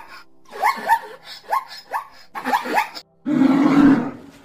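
Zebra barking calls: a quick run of short yelps, each rising in pitch. About three seconds in they give way to a deep, rough bear growl.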